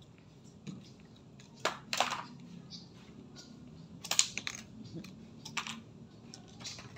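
Cut-up pieces of CD clicking and clattering as they are picked up and handled on a tabletop, in several separate clusters of sharp clicks, over a faint low hum.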